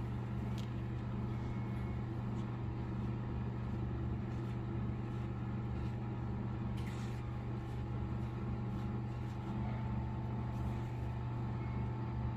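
Steady low machine hum, with a few faint soft ticks scattered through it.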